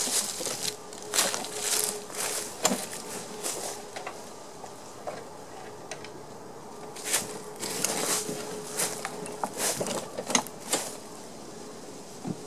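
Irregular knocks, rattles and scrapes of a John Deere JS60 walk-behind mower being tipped up on its side to get at the deck and blade, in two bouts with a quieter stretch between them. A faint steady hum runs underneath.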